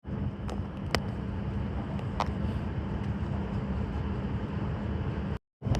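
Abukuma Express electric train running, heard from on board as a steady low rumble and hum. Three sharp clicks come in the first two or so seconds.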